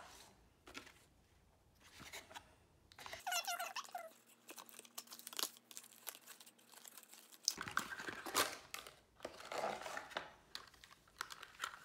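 Plastic packaging sheet and cardboard box crinkling and rustling as they are handled, with a short squeak of plastic rubbing about three and a half seconds in. Scattered small clicks and knocks come from the headphones being lifted out and handled, busier in the last few seconds.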